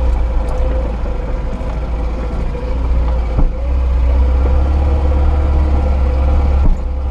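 Lada Niva (VAZ-2121) four-cylinder engine running at low speed on a rough off-road track, heard from inside the cab as a steady low drone with a constant whine over it. Two short thumps, about three and a half seconds in and near the end.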